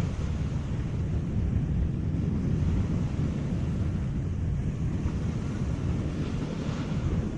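Wind buffeting the microphone with a rough, uneven low rumble, over the steady wash of sea waves.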